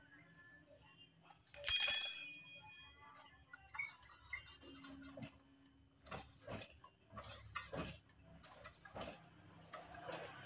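A metal tool hits metal with a bright, ringing clang about two seconds in, then scattered lighter metallic clicks and rattles of tools and parts being handled.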